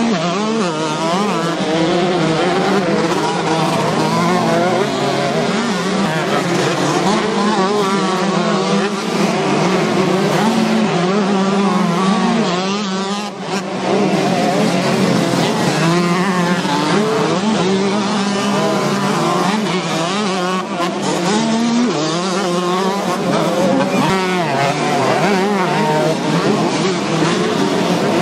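Several small two-stroke motocross bike engines (125 cc and 65 cc classes) racing at once, revving hard and overlapping, their pitch constantly rising and falling with throttle and gear changes.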